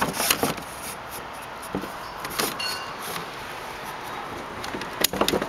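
Aluminum stabilizer-float arm sliding into its aluminum crossbar socket on a kayak sail rig: metal-on-metal knocks and clicks at the start, a faint scraping squeak partway through, and more clicks near the end as the spring button locks the arm in place.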